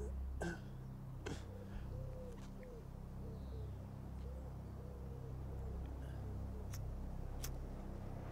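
A cigarette lighter struck twice, about a second apart near the end, two sharp clicks, over a low steady drone. In the middle a bird coos softly several times in a row, and there are a couple of small clicks of handling about a second in.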